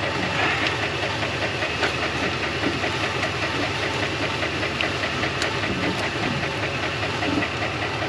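Truck engine idling steadily, with a few faint clicks on top.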